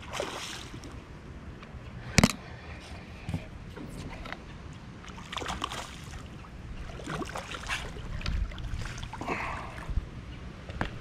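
A hooked snook splashing and thrashing at the surface beside a small boat as it is played to the net, in a series of short irregular splashes, with one sharp knock against the boat about two seconds in.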